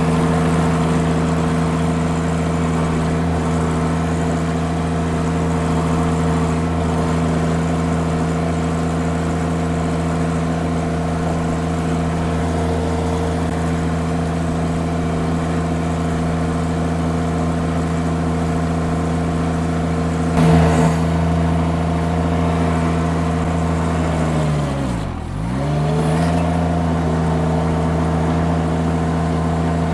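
Derette V1000 mini skid steer's engine running steadily at high speed. About 25 seconds in, the engine speed drops sharply and recovers about a second later. A short knock is heard a few seconds before that.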